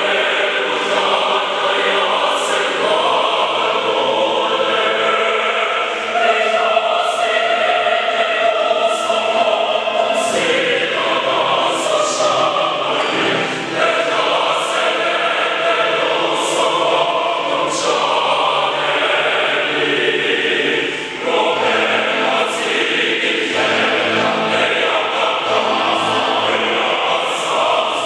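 A choir singing sustained chords in harmony, with sharp 's' consonants sung together every second or two and short breaks between phrases about halfway through and about three-quarters of the way through.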